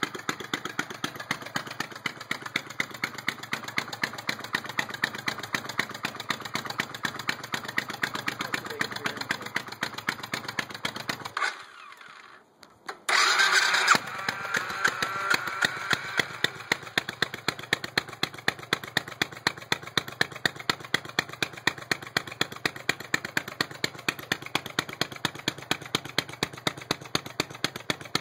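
2001 Suzuki Savage's single-cylinder engine running at one steady, raised speed with an even firing beat. The engine sits as if the throttle were half open and does not respond to the throttle. Near the middle the sound drops away for about a second and a half, then comes back with a short loud burst and runs on at the same speed.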